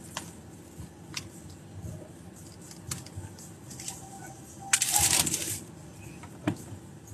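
Rustling and small clicks of something being handled inside a car, with a louder rustle about five seconds in, over the low hum of the cabin.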